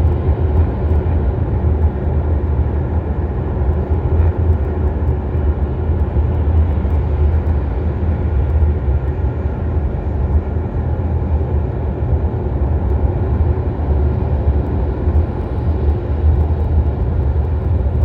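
Steady low rumble of road and tyre noise heard inside a moving Tesla Model Y's cabin, with no clear rise or fall in pitch.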